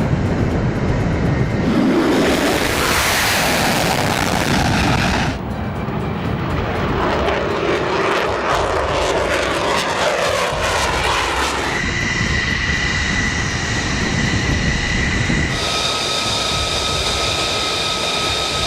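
Jet aircraft engines running loud in a string of cut-together clips, changing abruptly every few seconds; the later part carries a steady high whine.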